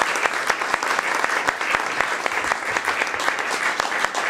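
A roomful of people applauding, many hands clapping steadily after a speech.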